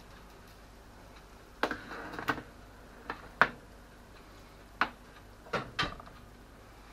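Baking tray set down on a glass cooker top and handled: a string of about seven sharp knocks and clatters at uneven spacing, the loudest just before halfway.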